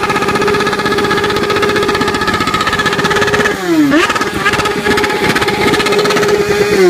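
BMW S1000RR inline-four with an Akrapovič exhaust held at high, steady revs during a smoky rear-wheel burnout. The revs dip once a little past halfway and climb straight back up.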